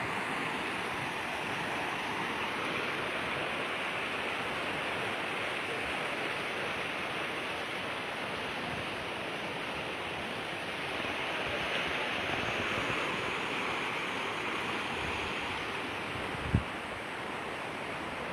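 Steady rushing of a swollen, fast-flowing flood river, an even noise without pauses. A single short thump comes near the end.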